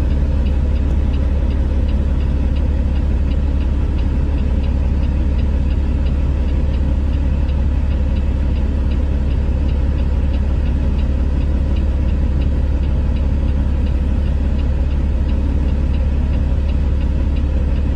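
Heavy diesel engines of a dump truck and an excavator running at a steady idle, a deep, even rumble with a faint regular ticking over it.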